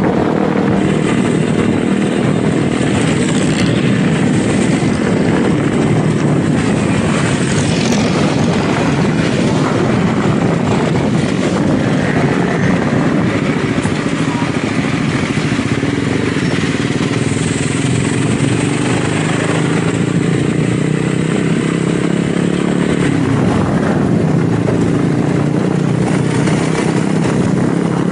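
Motorcycle engine running steadily while riding at speed, with wind and road noise over it.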